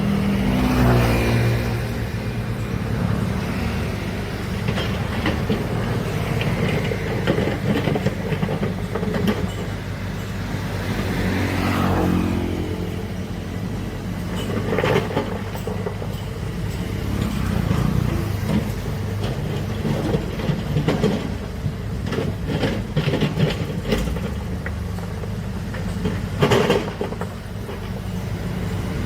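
Large diesel earthmoving machine running steadily, its engine pitch swelling up under load a couple of times, with scattered sharp metallic knocks in the second half.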